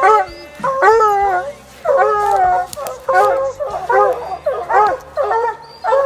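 Hunting hounds baying, with several loud, drawn-out bawls in quick succession, some overlapping: hounds barking treed, holding their quarry up a tree.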